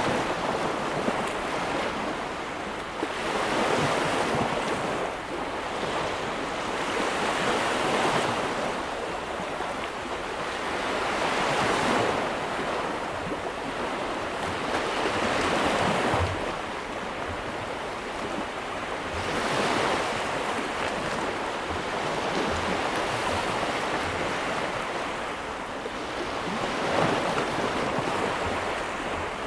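Ocean waves breaking and washing ashore, swelling in repeated surges every three to four seconds over a steady rush of surf.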